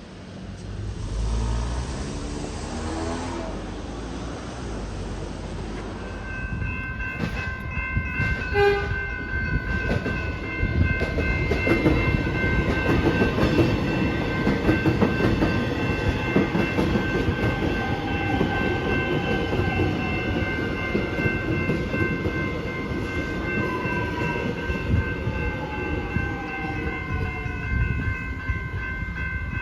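Suburban train passing through the level crossing, its wheels clattering on the rails. From about six seconds in a steady high whine runs through it, and near the end a whine falls in pitch.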